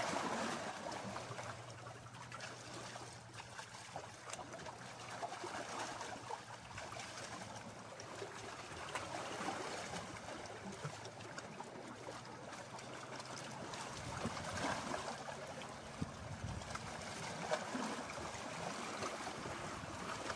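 Small sea waves lapping and trickling among shoreline rocks. A faint steady low hum runs underneath for most of the first two-thirds.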